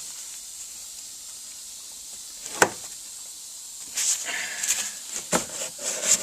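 Steady background hiss with one sharp knock about two and a half seconds in, then a couple of seconds of scattered clattering and rustling, like something being handled.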